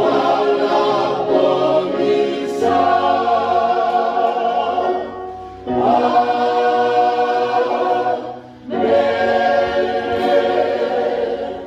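Church congregation singing a hymn together in long held chords, with short breaks between phrases about five and a half and eight and a half seconds in, fading near the end.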